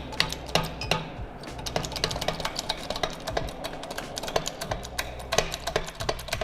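Quick, irregular clicking, several clicks a second, from work on the rear suspension while it is jacked up a little, over background music with low held bass notes.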